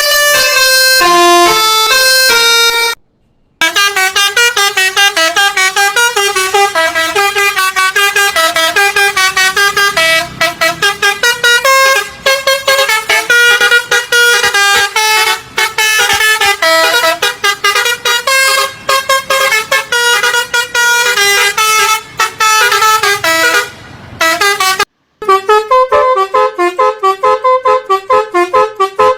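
Bus 'telolet basuri' multi-tone horn playing loud, quick tunes note after note, broken by two short silences, about three seconds in and near the end.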